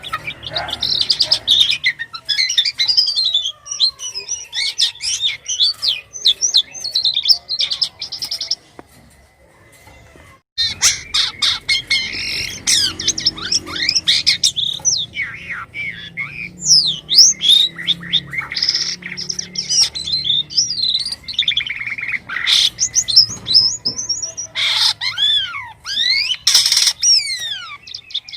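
A jalak kapas starling singing continuously in a varied, chattering song of sliding whistles, squeaks and rapid trills, full of odd notes. The song stops for about two seconds a little before the middle, then starts again.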